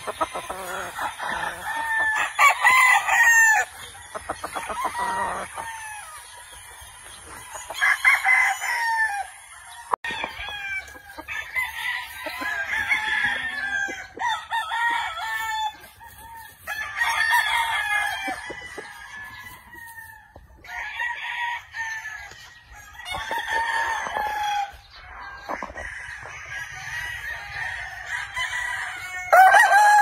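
Gamefowl roosters crowing again and again, with clucking between crows. A long, loud crow comes near the end.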